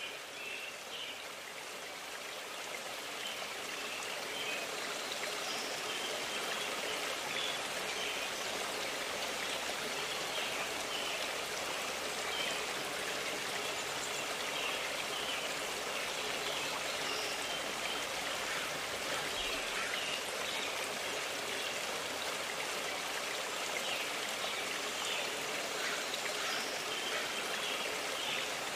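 A stream running steadily: an even rush of water that grows a little louder over the first few seconds, with faint short high chirps scattered through it.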